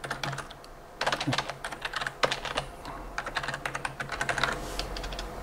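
Typing on a computer keyboard: a quick, uneven run of key clicks, few at first and then dense from about a second in.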